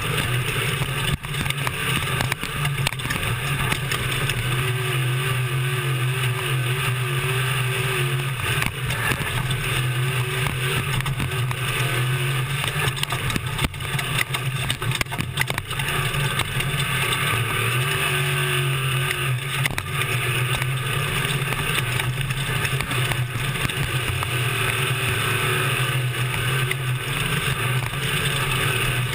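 Class 1450 desert race truck's engine running steadily under load, heard from inside the cab, with scattered knocks and rattles from driving over rough ground.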